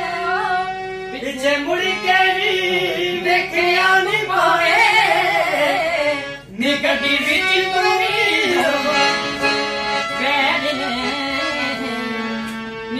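Harmonium playing sustained reed chords and melody under men's voices singing a Punjabi song with ornamented, gliding lines. The music dips briefly about six and a half seconds in.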